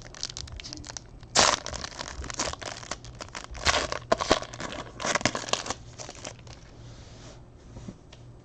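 Trading card packs being torn open and their wrappers crinkled in the hands, in bursts of rustling and tearing that die away over the last two seconds.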